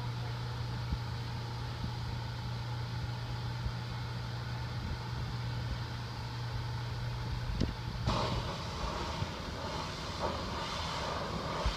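Pressure washer's engine running with a steady low hum. About eight seconds in, the hiss of the high-pressure water spray on the metal roof comes in.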